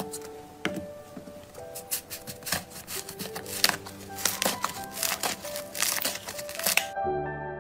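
Blue slime squeezed and pressed by hand in small plastic cups, giving dense crackly clicks and pops over soft background music. The crackling stops abruptly near the end, leaving only the music.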